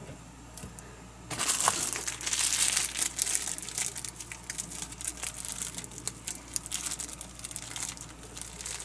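Thin clear plastic bag crinkling as it is handled, starting about a second in, loudest soon after, then continuing in smaller crackles.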